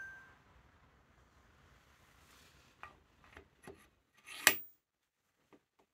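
Bearing in its cast housing being slid by hand onto a freshly turned steel shaft journal for a test fit: a metallic ring fading out at the start, a few light clicks of metal on metal, and one sharper clack about four and a half seconds in.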